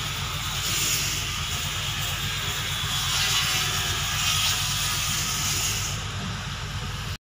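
An engine running steadily with an even low pulse, under a loud hiss. The sound cuts off abruptly about seven seconds in.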